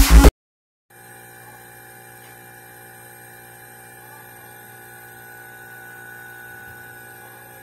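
Loud electronic music cuts off right at the start. After a short silence, a hermetic air-conditioner compressor, used as the pump of a homemade air compressor, runs with a steady, even electric hum.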